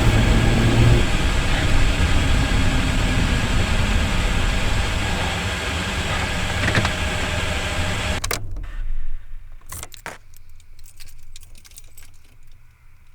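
A car running and driving, a steady noise of engine and road, which cuts off abruptly about eight seconds in as the car stops and is shut off. After that come a few scattered clicks and knocks, like keys and handling inside the car.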